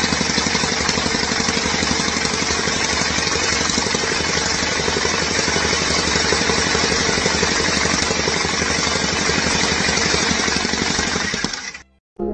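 Small petrol engine of a green compactor running hard and steadily with a fast, even pounding rhythm; it cuts off suddenly near the end.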